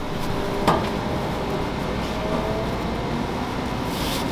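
Steady low background rumble, with one light knock a little under a second in.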